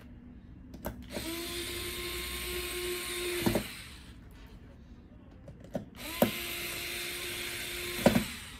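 Handheld electric screwdriver driving two screws, one after the other: each run is a steady motor whine that rises briefly at the start and ends in a sharp click as the screw seats, the second run slightly shorter.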